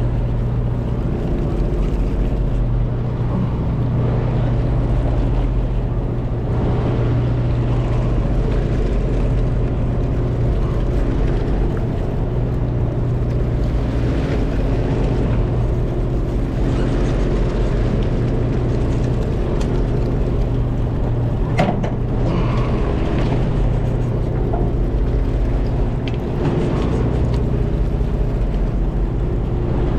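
A charter fishing boat's engine running steadily with an even hum, water washing along the hull, and a single sharp knock about two-thirds of the way through.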